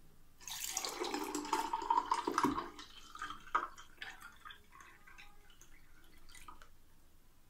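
A blended mint margarita is poured from a glass blender jar into a glass over ice. It splashes loudly for about two seconds, then thins to trickles and drips that die away.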